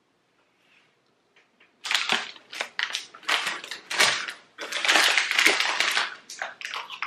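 Foil snack bag crinkling loudly in someone's hands, starting about two seconds in and going on in dense, irregular crackles.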